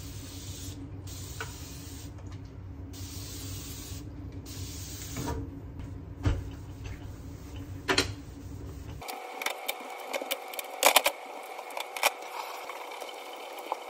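A hand-held spray bottle hissing out cleaner in several bursts of about a second each over a low hum. About nine seconds in, this gives way to a cloth being rubbed over a gas cooktop, with sharp clicks and knocks from the metal grates.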